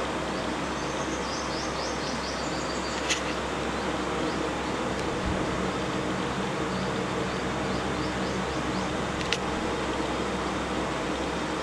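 Steady outdoor background hiss with a low hum. A run of rapid high-pitched chirps comes in the first three seconds, and there are two sharp clicks, one about three seconds in and one a little past nine seconds.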